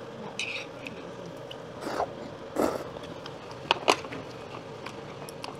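Quiet eating at a table: a few light clicks of chopsticks against dishes, including two quick clicks about four seconds in, and a couple of short eating noises, over a faint steady hum.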